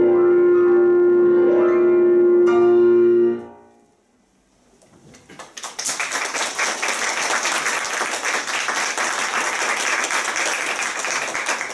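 Euphonium holding a long final note over piano chords, ending about three and a half seconds in. After a short silence, the audience claps, building into steady applause.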